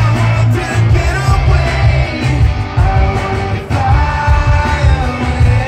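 Live rock music played loud through a concert PA: a singing voice and guitar over heavy bass.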